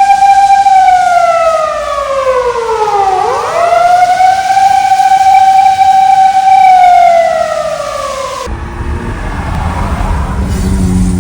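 An emergency vehicle's siren wailing: a loud tone that holds high, slides slowly down, snaps back up and holds, then slides down again. Near the end it cuts abruptly to a quieter stretch of low traffic rumble with a fainter siren.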